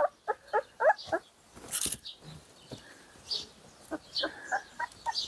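Newborn puppies whimpering and squeaking: a quick run of short, high, rising-and-falling cries in the first second, then scattered fainter squeaks. There is a brief burst of noise just under two seconds in.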